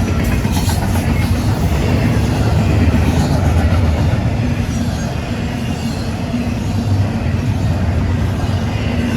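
Loaded freight train rolling past at close range: a steady, loud rumble of wheels and cars, with faint high-pitched wheel squeals now and then.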